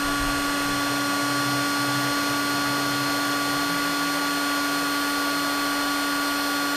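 Handheld heat gun running steadily: an even rush of blown air with a motor hum and whine that hold one pitch.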